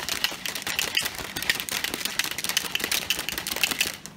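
A plastic shaker bottle of protein shake being shaken hard, a fast rattling of the liquid and lid that stops just before the end.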